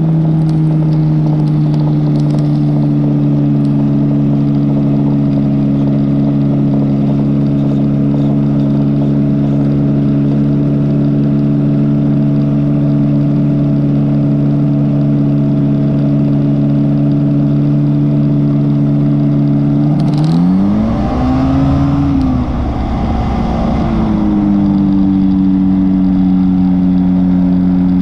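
Rotax 503 DCDI two-cylinder two-stroke engine of a Phantom X1 ultralight running steadily at cruise. About two-thirds of the way through, its pitch rises and falls back over a few seconds before it settles at a slightly higher steady speed.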